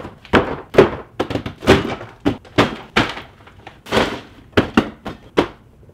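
Cardboard shipping boxes being set down and stacked one after another, a rapid irregular series of thuds.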